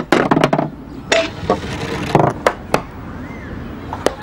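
A mini-golf ball knocking and rolling through painted wooden course obstacles, a few sharp knocks spread across the seconds, with short bursts of a voice.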